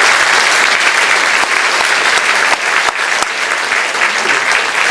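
Audience applauding after a piano piece: many hands clapping at once, loud and steady.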